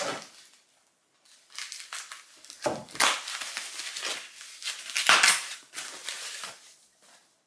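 White plastic wrapping crinkling and rustling in hands as it is pulled off a product, in several uneven bursts, loudest about three and five seconds in.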